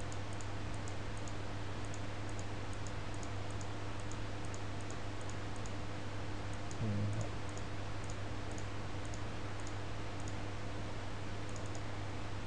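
Computer mouse clicking at an uneven pace, about two clicks a second, as a selection outline is placed point by point, over a steady low electrical hum and hiss. A soft bump comes about seven seconds in.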